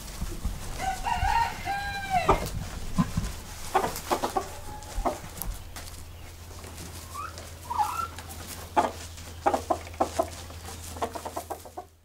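Chickens clucking, with one long rooster crow about a second in, followed by shorter scattered calls. A low steady hum runs underneath, and everything drops away at the very end.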